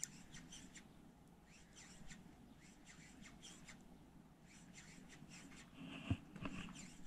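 Faint, scattered high chirps and squeaks in short irregular runs, like small birds calling, over a faint low hum. A soft knock comes about six seconds in.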